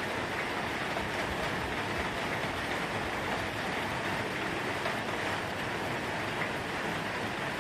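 Steady rushing and splashing of running water, an even hiss with no pauses.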